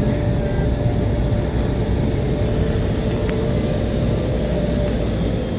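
Automatic car wash air dryer blowing over the car, heard from inside the cabin: a steady rushing of air with a faint steady whine that fades out about five seconds in.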